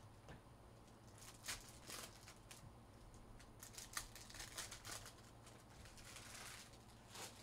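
Foil trading-card pack wrappers faintly crinkling and rustling as they are handled and torn open. A few short crinkles and snaps are scattered through, with a longer rustle shortly before the end.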